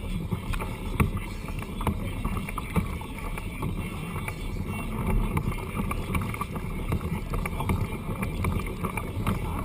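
Water slapping against a kayak's hull, with a steady low rumble of wind on the microphone and scattered small knocks at irregular moments.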